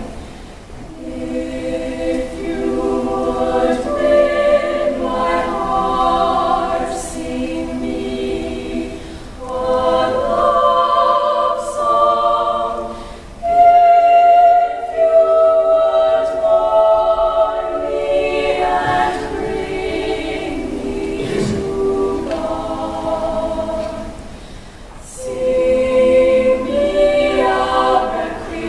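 Women's choir singing a cappella in several parts, holding sustained chords phrase by phrase with brief breaths between phrases.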